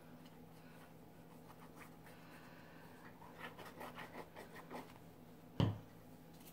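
Nozzle of a liquid glue bottle scraping across cardstock in a quick run of short scratchy strokes as glue is laid on, then one dull thump near the end.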